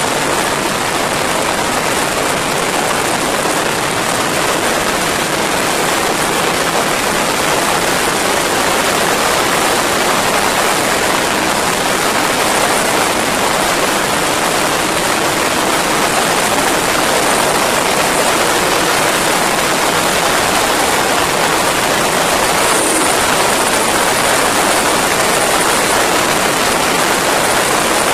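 Steady rush of wind on the microphone of a riding motorcycle at road speed, with the Yamaha's inline-four engine running underneath.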